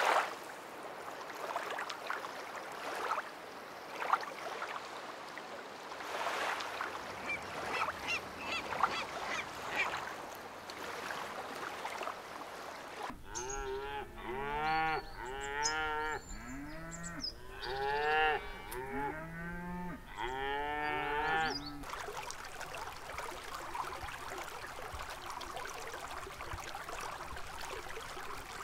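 Light splashing and lapping of water, then a herd of cattle mooing: many short, overlapping calls lasting about eight seconds in the middle.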